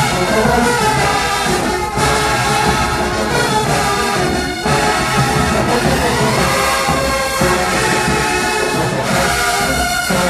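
HBCU marching band playing loudly, full brass section with trombones over drums, with short breaks between phrases about two, four and a half and nine seconds in.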